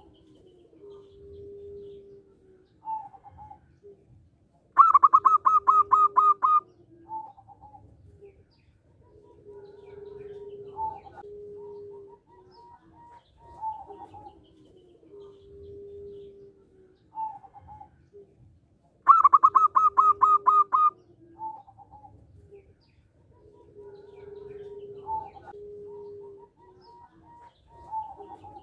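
Zebra dove (local Indonesian perkutut) singing its loud, rhythmic song twice: a quick run of about eight to ten staccato cooing notes, about five seconds in and again near the twenty-second mark. Softer, lower coos and short calls come in between.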